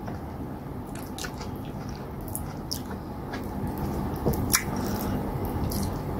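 Wet, squishy sounds of fingers working soft cassava fufu through slimy okra stew, with scattered small sticky clicks and one louder click about four and a half seconds in.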